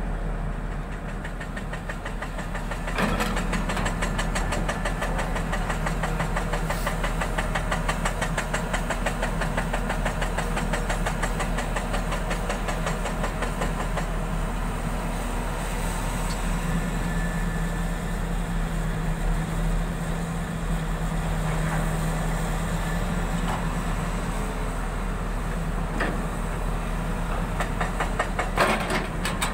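Volvo crawler excavator's diesel engine running under load as the machine digs and swings, picking up about three seconds in and holding steady. A few sharp knocks sound near the end.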